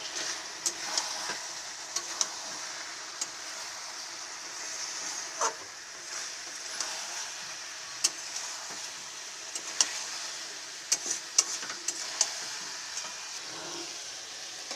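Chicken and potatoes sizzling in oil in a steel kadai while a spatula stirs and scrapes them, with frequent sharp clinks of the spatula against the pan. This is the kosha (dry-sautéing) stage of the curry, the masala frying down with the meat.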